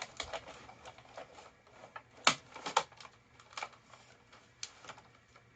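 Irregular plastic clicks and knocks from a Roomba Discovery SE's brushes and brush housing being handled and pushed into place, with two louder knocks a little over two seconds in.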